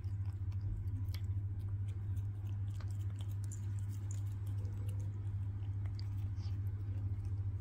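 A cat chewing and biting on a chew stick: faint, irregular small crunching clicks. A steady low hum runs underneath and is the loudest part.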